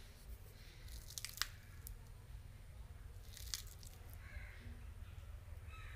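Faint handling of leafy herb sprigs going into a clay pot: soft crinkling with a few small clicks, the sharpest about a second and a half in and another few about three and a half seconds in.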